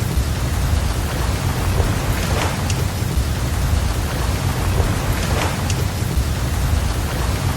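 Steady rain hiss over a deep low rumble, a mixed rain and ocean-surf ambience. A faint swish swells twice, about three seconds apart.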